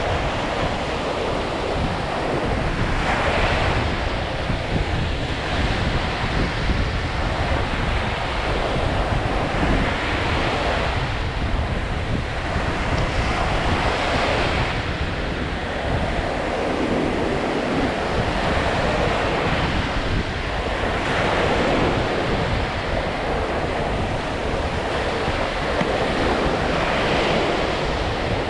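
Lake Michigan surf: waves breaking on the shore, swelling every few seconds over a steady wash. Wind rumbles on the microphone.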